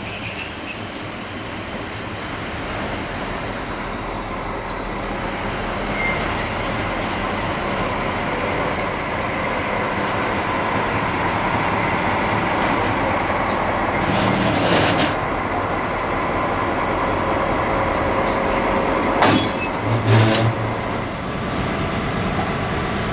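SNCF BB 67300-class diesel locomotive's engine running steadily, growing louder over the first several seconds, with two short hisses of air about halfway through and again near the end.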